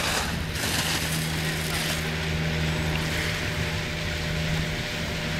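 A steady low motor hum under a constant hiss.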